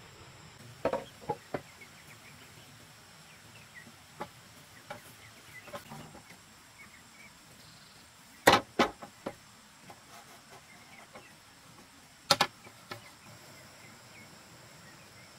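Hollow knocks of bamboo poles being handled and set against one another, in short clusters of two or three, the loudest about eight and a half and twelve seconds in.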